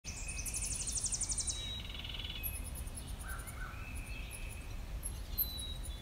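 Several songbirds singing and calling over a low steady rumble. About half a second in, a fast, very high trill runs for about a second. It is followed by a shorter, lower trill and scattered short chips and whistles.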